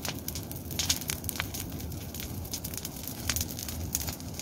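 Bonfire of dry brush and branches burning: a steady low rush with scattered sharp crackles and pops.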